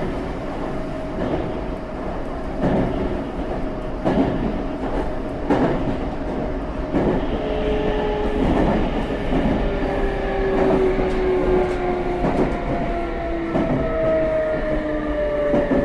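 Meitetsu 3500 series electric train running, its GTO-VVVF inverter whining in several tones that slowly fall in pitch as the train slows. The wheels click over rail joints about once every one and a half seconds, the clicks spreading further apart.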